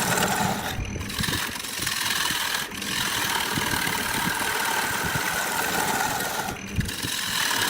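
Wood lathe running with a turning tool cutting a spinning wood blank, a steady hum under a cutting hiss. The cutting breaks off briefly about a second in, near three seconds and near the end.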